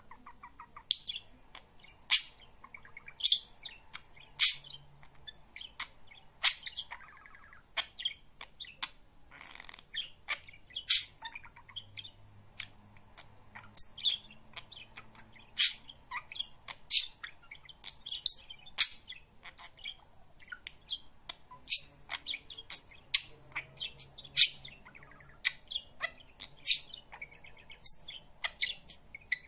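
Budgerigar chirping: short, sharp, high-pitched chirps about once a second, with quieter warbling chatter between them.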